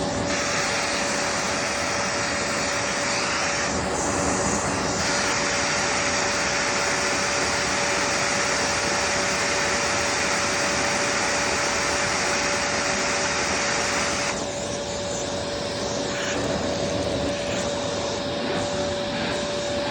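Vacuum cleaner running steadily, its motor giving a steady whine over a rushing hiss. About three-quarters of the way through, the hiss thins out and the sound gets a little quieter.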